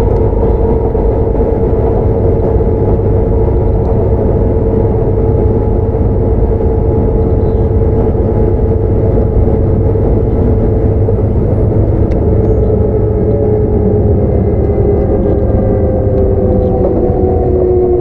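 Sotetsu 9000-series electric train heard from inside a car: rumble of wheels on rail under a steady whine from its Hitachi IGBT-VVVF traction motors and right-angle cardan gear drive. The whine falls slowly in pitch as the train loses speed, dropping faster near the end.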